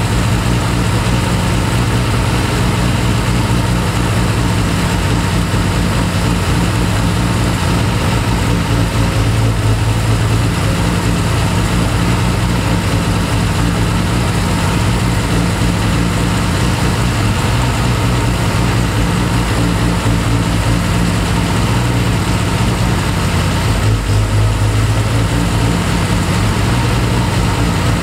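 Triumph TR6 straight-six engine idling steadily on twin Zenith Stromberg carburettors while their pistons are lifted very slightly, one carburettor at a time, in a mixture check. The check listens for whether the idle speed rises, which means the mixture is too rich, or drops, which means it is too lean.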